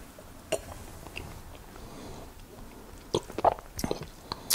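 Faint wet mouth sounds of a person tasting a sip of whisky: a single smack about half a second in, then a cluster of lip smacks and tongue clicks after about three seconds.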